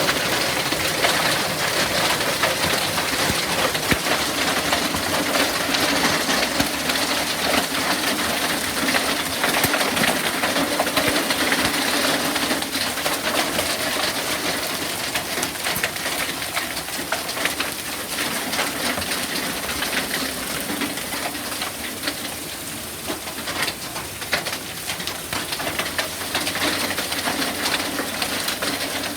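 Hailstones falling and striking surfaces: a dense, steady patter of countless small impacts within a rushing noise of falling hail and rain.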